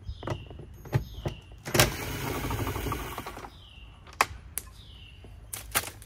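Cordless drill/driver backing out a door-panel screw: a click about two seconds in, then the drill runs for about a second and a half, with scattered clicks and knocks from handling the tool before and after.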